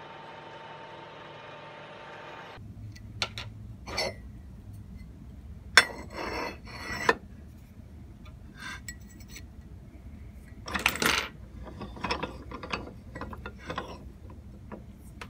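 A milling machine runs steadily while a reamer turns in a steel plate, cutting off about two and a half seconds in. Then come scattered sharp clinks and knocks of metal parts being handled, a bronze bushing set on the steel plate among them, the loudest around the middle.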